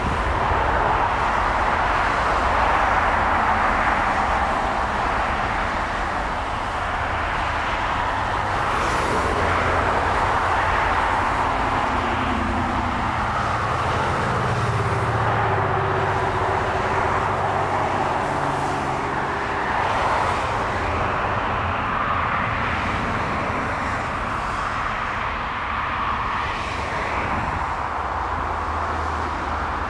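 Airbus A330 jet engines at takeoff power as the airliner rolls down the runway and lifts off: a steady rushing jet noise, with faint engine tones sliding in pitch partway through.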